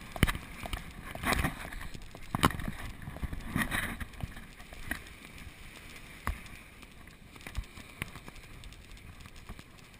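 A horse being ridden on beach sand, picked up by a camera on the rider: irregular thuds and knocks from the horse's movement, loudest in the first four seconds and thinning out later, over a steady rush of wind noise.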